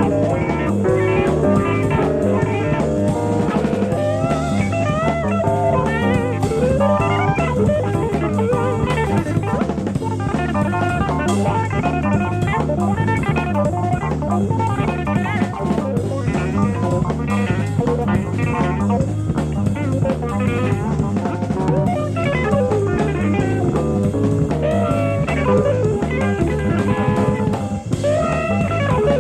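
Live jazz-fusion band music played back from a cassette tape recorded off an FM broadcast: an electric guitar plays a melodic line with bent notes over a steady bass and drum kit groove.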